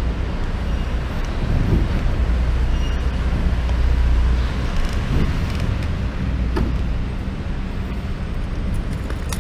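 Motorcycle engine running at low speed, a steady low rumble that swells a little a few seconds in.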